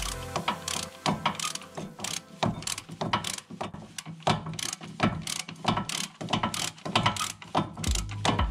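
Ratchet wrench clicking in quick, uneven runs as it winds in a front brake caliper bracket bolt on a Land Rover Discovery 3.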